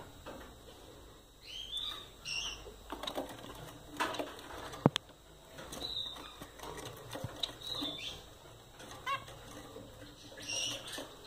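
Gouldian finches in a cage giving short, high, rising chirps every second or so, mixed with light clicks and rustles of the birds moving about; one sharp click about five seconds in.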